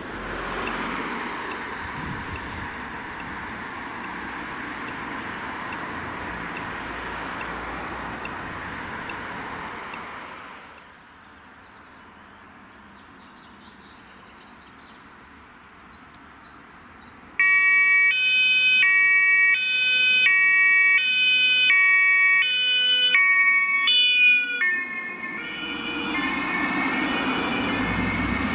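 Road traffic passing, then a quieter stretch with faint bird chirps. About seventeen seconds in, a loud German two-tone emergency siren from an approaching fire-service convoy starts up, switching back and forth between a high and a low tone for about seven seconds. Vehicle engines follow as the convoy comes past.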